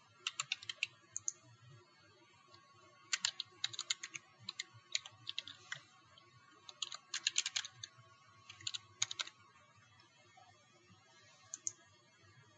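Computer keyboard typing in several short runs of keystrokes, with pauses between them, then a couple of single clicks near the end.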